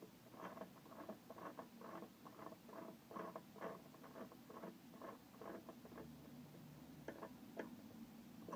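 Quiet, irregular light taps and clicks, a few a second, from a hand working right beside the camera.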